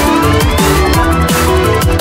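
Loud electronic dance music with a fast, dense beat and bass notes that slide down in pitch, with a synth sweep rising in pitch near the start.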